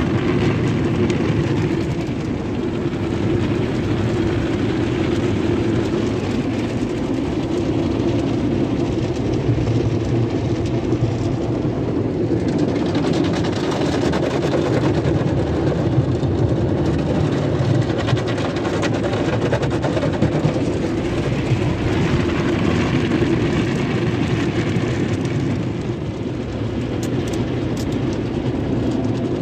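Sonny's tunnel car wash equipment heard from inside the car's cabin: cloth brushes and wash material scrubbing over the glass and body amid soapy water, a steady loud rumble.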